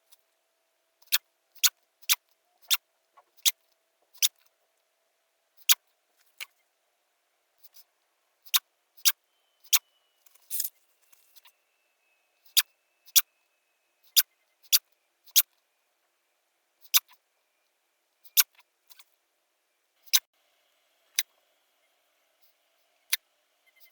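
A person sneezing again and again in quick succession, short sharp sneezes about one a second, with one longer, louder sneeze about halfway through.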